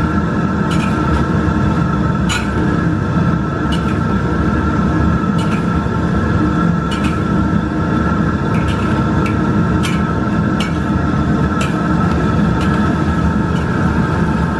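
Wontons deep-frying in a wok of oil over a steady, loud kitchen rumble, with the ladle clicking against the wok about once a second as they are stirred.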